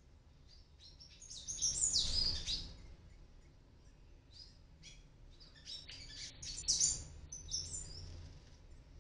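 Palm tanagers calling: two bouts of quick, high-pitched chirps, one about a second and a half in and a longer one from about five to eight seconds.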